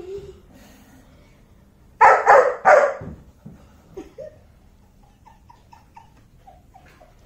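German Shepherd puppy barking three times in quick succession about two seconds in, then giving a string of short, faint, high whines.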